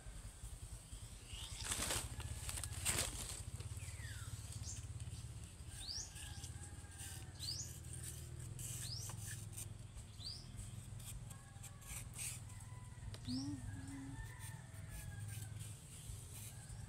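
Coconut palm leaflets rustling and crackling as they are handled, with short repeated knife scrapes as the leaf blade is stripped from the midribs to make broom sticks. Two louder crackles come about two and three seconds in, and faint birdsong runs underneath.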